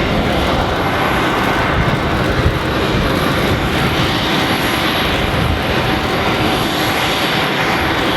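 Jet aircraft engines running: a steady loud rush with a thin, constant high whine over it.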